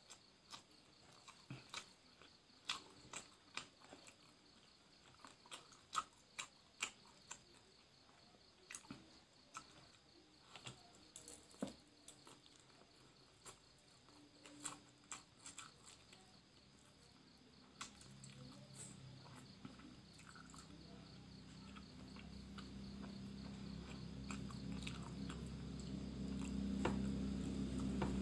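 Close-up eating sounds: a person chewing rice and grilled fish with sharp wet mouth clicks and smacks, over a faint steady high trill. From about 18 seconds in, a low engine drone from a passing vehicle rises and grows steadily louder to the end.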